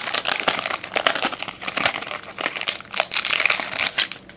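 Crinkling and crackling of the wrapping around trading cards as they are handled. It is dense and busy at first and thins out near the end.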